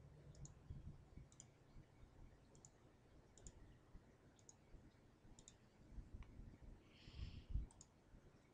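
Faint computer mouse clicks: about seven single clicks spaced a second or so apart, each a quick click-click of the button going down and coming back up.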